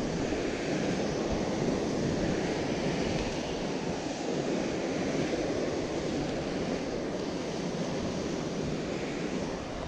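Ocean surf breaking and washing over rocks, a steady rush, with some wind on the microphone.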